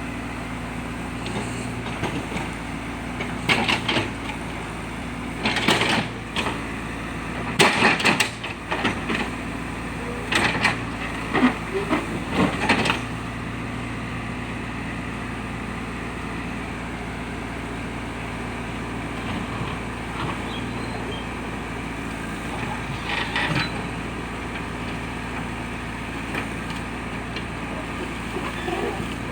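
Diesel engine of a JCB backhoe loader running steadily, with a series of knocks and clanks from the digging gear through the first half and once more later on.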